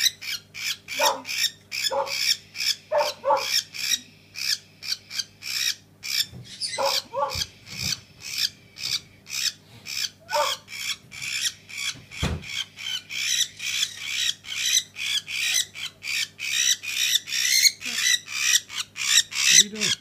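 A cockatiel screeching over and over in quick succession, about four calls a second, while held in the hands during a fit brought on by lead poisoning. A low thump comes about twelve seconds in.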